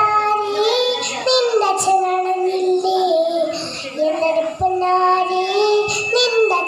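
A young girl singing a Malayalam folk song (nadan pattu) into a microphone, in long held notes with brief breaks between phrases.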